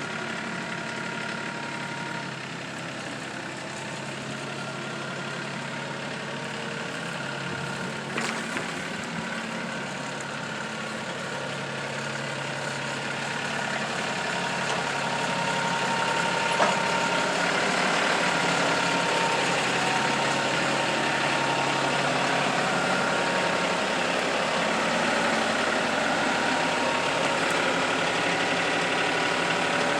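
An engine running steadily, getting somewhat louder about halfway through, with a couple of brief knocks.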